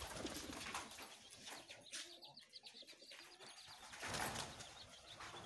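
Pigeons cooing, with wings flapping as pigeons take off, loudest about four seconds in.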